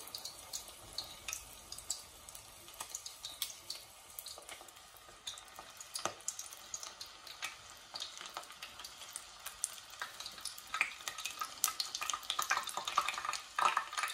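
A single ball of ground pork deep-frying in hot oil in a pot, sizzling with a steady crackle of small pops. Metal tongs turn it in the oil, and the crackling grows busier and louder in the second half.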